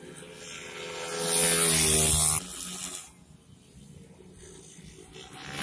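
Racing motorcycle engines revving high as they pass, swelling to a loud peak about a second in and then cutting off abruptly midway. Near the end another racing engine approaches and grows louder.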